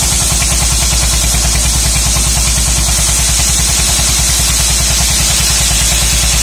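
Dongfeng single-cylinder diesel engine driving a homemade circular-saw sawmill, running steadily with an even, fast chugging. A steady high hiss sits above it.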